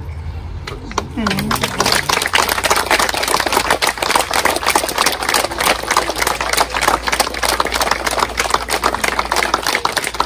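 Small crowd applauding, starting about a second in as a dense patter of claps and keeping on.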